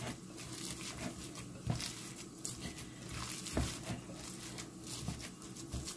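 Hands kneading raw ground-meat meatloaf mix in a bowl: faint, irregular squishing, with a few soft thumps.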